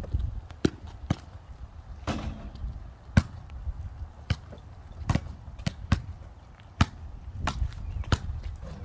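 A basketball bouncing on outdoor pavement: sharp, irregularly spaced slaps, with one ringing bounce about two seconds in, over a steady low rumble.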